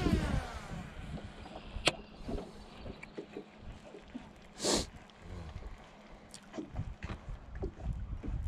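Baitcasting reel spool whining as line pays out on a cast, falling in pitch over about half a second. A sharp click follows about two seconds in and a short hiss a little before the five-second mark, over low wind and water rumble.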